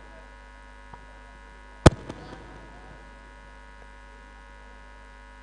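Steady electrical mains hum, with one sharp click about two seconds in.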